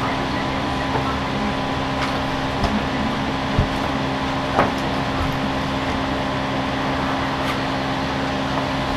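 Flash floodwater rushing over a road surface: a steady, even rush. A steady low hum runs underneath, and there are three light knocks near the middle.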